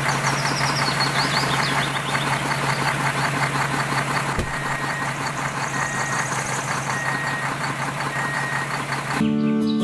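A motor vehicle engine running with a steady low hum, with short high beeps repeating about once a second in the second half, like a reversing alarm. It starts and cuts off abruptly.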